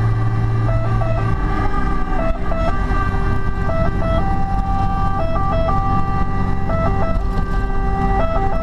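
Fire engine's two-tone siren, alternating between a high and a low pitch, heard from inside the cab with the truck's engine running underneath.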